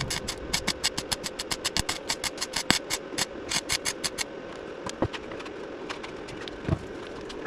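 A run of rapid mechanical clicks, several a second, that thins out after about four seconds to a few scattered clicks.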